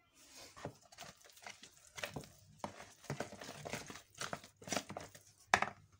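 Steel spoon stirring a thick gram-flour batter in a bowl: irregular wet scraping and slapping strokes, with one sharper, louder stroke near the end.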